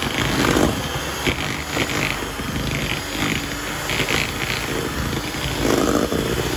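Sunbeam electric hand mixer running steadily, its beaters mashing boiled potatoes in a stainless steel bowl, with uneven scraping and clatter as they knock the potato and the bowl.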